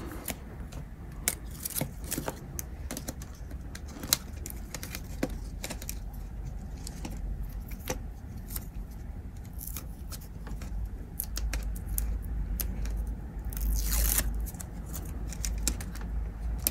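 Hand-handling noise as sticky tape is pressed over a battery pack inside an opened calculator case: scattered small clicks and taps of fingers on plastic and circuit board, with a brief rustle of tape about fourteen seconds in.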